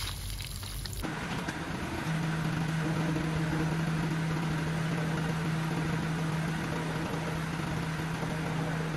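Briefly, water from a hose splashing on a wooden slab. Then a crane truck's engine running steadily to power its truck-mounted UNIC hydraulic crane as it hoists a stack of wooden slabs, with a steady hum setting in about two seconds in.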